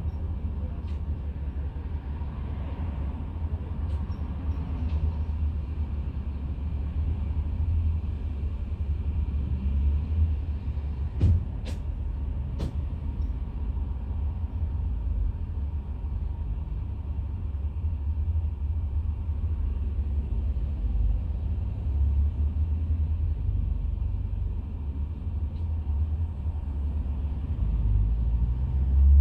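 Volvo diesel engine of a double-decker bus idling, a steady low rumble, with a few sharp clicks about a third of the way through.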